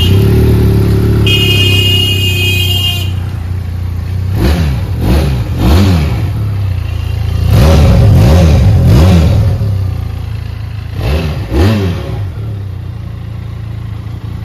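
Benelli Leoncino twin-cylinder engine through its stock exhaust, starting at once and idling, then blipped in a series of short revs that rise and fall, with a smooth note. A brief high-pitched tone sounds about two seconds in.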